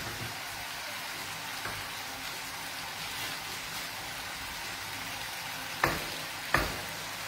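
White ragù sizzling in a frying pan on a gas hob, a steady hiss. Near the end, two sharp knocks against the pasta pot.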